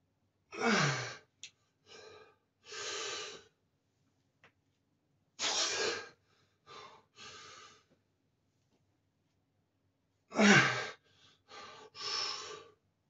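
A man breathing hard through a set of heavy barbell squats. There are three loud, forceful exhales about five seconds apart, the first and last voiced and falling in pitch, each followed by a couple of quicker breaths.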